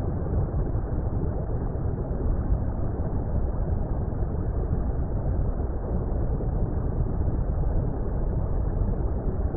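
Steady, muffled water rumble: a deep, even noise with nothing high in it and no changes.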